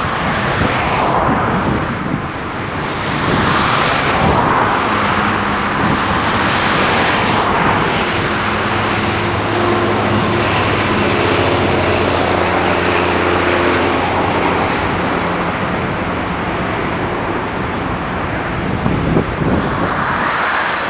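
Twin-engine jet airliner taking off, its turbofan engines at takeoff thrust: loud, steady rushing jet noise as it rolls, lifts off and climbs away, with a steady low hum through the middle.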